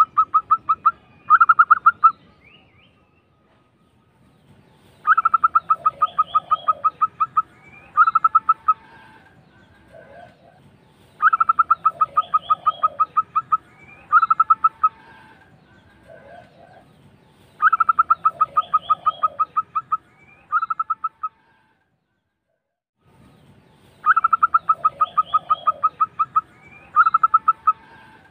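Zebra dove (local perkutut) singing its rolling cooing song: each phrase is a fast run of rapid pulsed coos followed by a short second burst. Four full phrases come about every six seconds, after the end of one phrase near the start.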